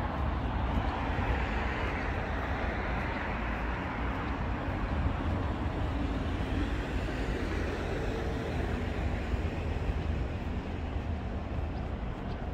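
Steady city traffic noise: a continuous low rumble with a broad hiss of passing vehicles that swells and fades.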